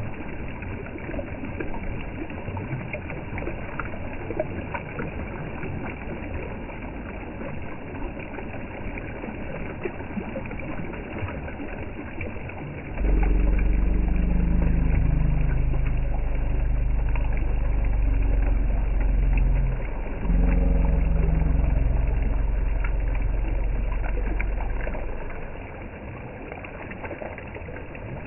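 Shallow river water rushing over stones. From about halfway through, a vehicle engine runs loudly for about twelve seconds, its pitch shifting a little, with a brief break, then it stops.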